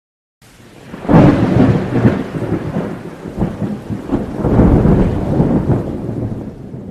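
Rolling thunder with rain, breaking in sharply about a second in and rumbling on in two swells before it cuts off at the end.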